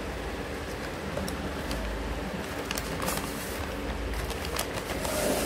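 Handmade paper blind bags crinkling and tapping as they are handled in a plastic basket, in short scattered clicks that grow busier in the second half. A steady hum and hiss runs underneath.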